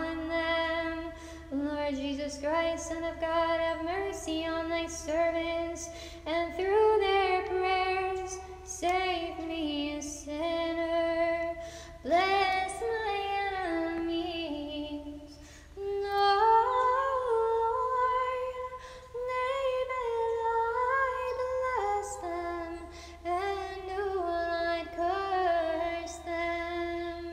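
Slow hymn sung by a female voice in held phrases a few seconds long, with brief dips between the phrases.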